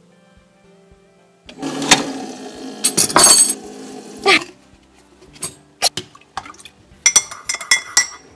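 Handling noise and sharp knocks on the counter, then a metal spoon clinking again and again against a ceramic coffee mug as it stirs, from about seven seconds in.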